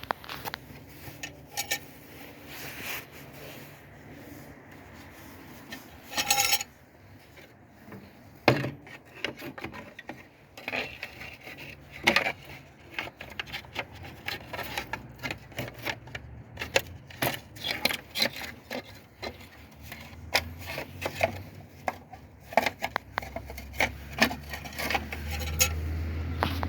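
Metal hand tools clinking, knocking and scraping against car parts in irregular clicks, with a low hum growing louder in the last few seconds.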